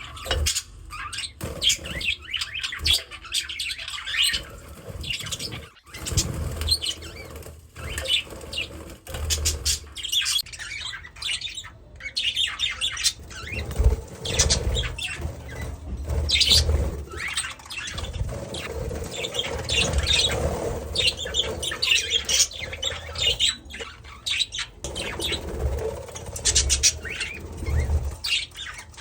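Pet budgerigar chirping and squawking in many short high calls, with low thumps and wing flutters among them.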